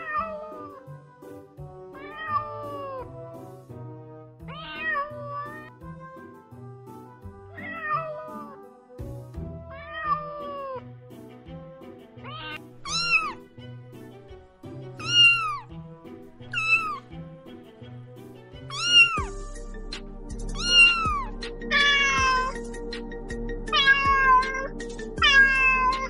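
A cat meowing again and again over background music: a meow about every two and a half seconds at first, then louder, higher and closer together after about twelve seconds, with a quick run of meows near the end. The music has a steady beat and grows fuller about nineteen seconds in.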